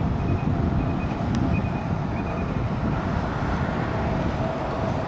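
Steady low rumble of outdoor city ambience: distant traffic mixed with wind on the microphone, with four faint short high peeps in the first couple of seconds.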